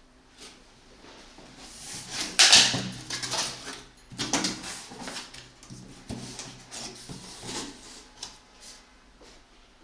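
Corrugated cardboard shipping carton being pulled open, its flaps scraping and rustling as they are folded back, with the loudest scrape about two and a half seconds in and a string of shorter rustles and knocks after it.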